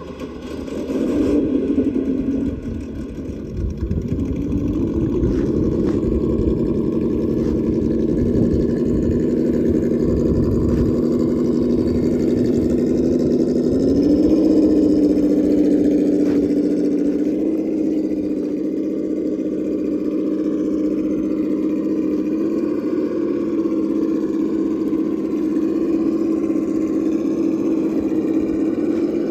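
Traxxas Defender RC crawler's electric motor and geartrain whining as it drives, the pitch stepping up a few times as the throttle changes, with some rumble of tyres on dirt early on.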